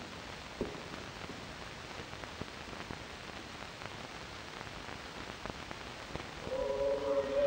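Steady hiss with faint scattered clicks from an old film soundtrack; about six and a half seconds in, a choir comes in on a held note and swells.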